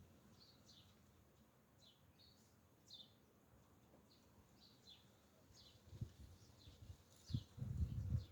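Birds chirping outdoors: short, high, falling chirps repeated about every half second. A few dull low thumps come in about six seconds in and again near the end.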